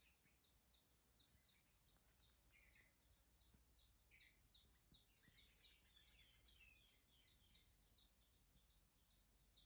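Faint bird calls: a steady series of short, high, falling chirps, about three a second, with a few lower chirps mixed in.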